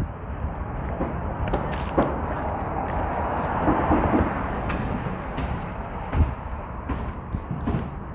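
Road traffic from a freeway off-ramp: a steady wash of passing-vehicle noise, with scattered short clicks and knocks.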